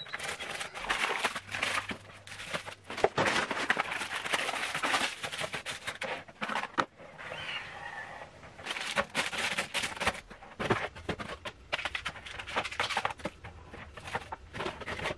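Plastic snack wrappers and packets crinkling and rustling as they are handled and packed into a clear plastic turntable organiser, in irregular crackly rustles with a short lull about seven seconds in.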